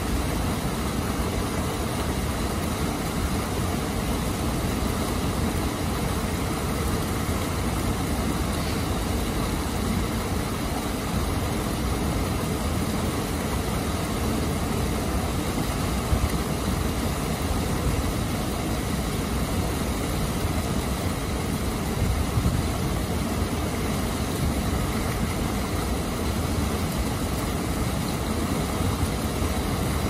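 Water pouring over a low weir-like waterfall and churning in the foaming pool below: a steady, rushing noise, heaviest in the low range.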